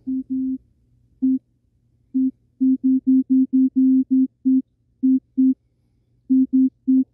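Teenage Engineering TX-6 synth engine playing short notes at one pitch, C4, in an uneven rhythm of clusters and gaps, driven by its random sequencer as it cycles through the sequence patterns.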